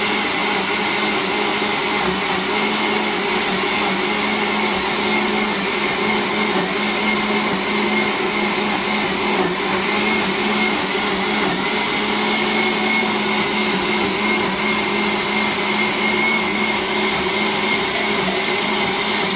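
Electric kitchen blender motor running steadily at one speed, with a constant whine, then switching off right at the end.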